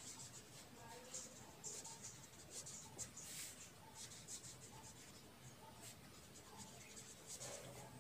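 Pen writing on paper: faint, irregular scratching strokes as letters are written out.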